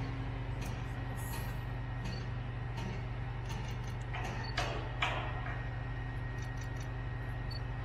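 Diesel engine of a fire brigade turntable ladder truck running steadily, powering the ladder while it is positioned. There are two short hisses about halfway through.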